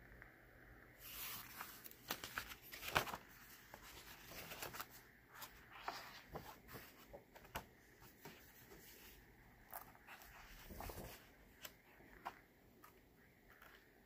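Pages of a book being handled and turned by hand: faint, irregular paper rustling with scattered light taps and clicks, loudest about three seconds in.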